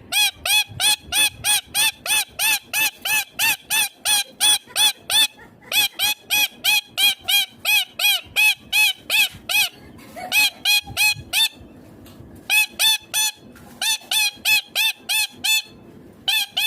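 Indian ringneck parakeet calling: a long run of short, repeated squawks, each rising and falling in pitch, about three a second, in runs broken by a few brief pauses.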